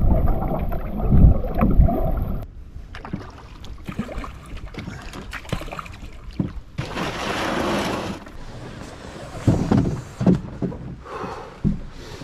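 Canoe being paddled: wind rumbling on the microphone at first, then scattered paddle knocks and a rush of splashing water about seven seconds in.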